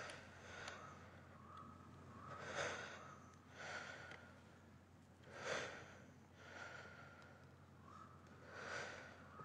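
A man breathing close up, slow and audible: a louder breath roughly every three seconds, each followed by a softer one.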